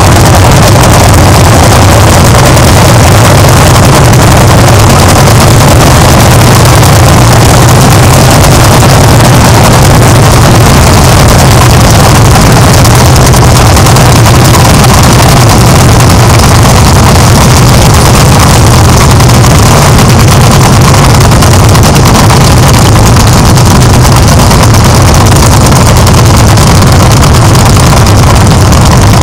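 Lanz Bulldog single-cylinder hot-bulb two-stroke tractor engines running loud and steady while hitched together pulling a loaded trailer.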